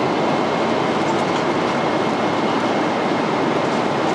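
Airliner cabin noise in cruise flight: the steady, even rush of the jet engines and airflow heard inside the economy cabin, with a faint steady high tone running through it.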